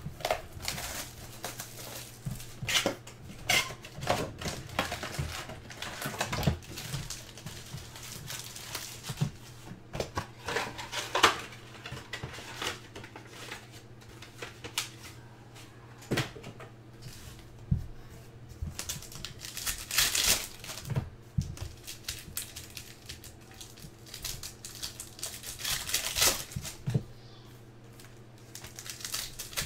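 Trading-card pack wrapper crinkling and tearing open, then a stack of basketball cards being handled and slid apart, a run of small clicks and rustles with a few louder crackling bursts, over a steady low electrical hum.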